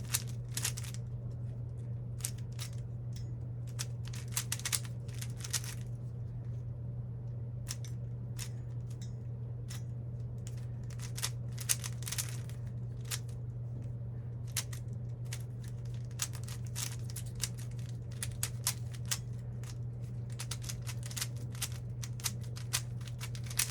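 Plastic Rubik's cube being turned rapidly by hand, its layers clicking in quick, irregular bursts, over a steady low hum.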